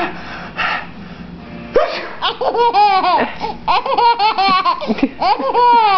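A baby laughing hard. After a quieter, breathy start, about two seconds in it breaks into a fast run of high, rising-and-falling squealing laughs.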